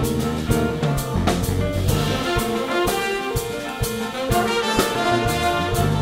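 Jazz big band playing: trumpets, trombones and saxophones in full ensemble over drums and electric bass, with cymbal strokes keeping a steady beat.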